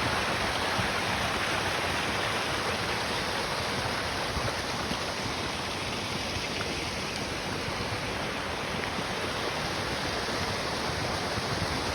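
Small hillside gully stream running steadily, carrying overflow water down from the moors.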